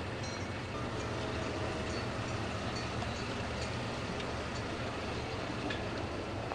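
A car moving slowly at low speed, a steady low hum under a constant hiss, with a few faint ticks.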